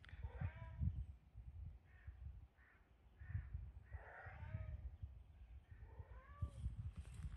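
Cats meowing: about five drawn-out meows, each rising then falling in pitch, over a low rumble.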